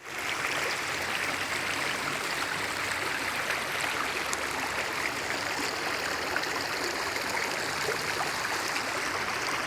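Stream water rushing steadily over the rocky tiers of a cascading waterfall.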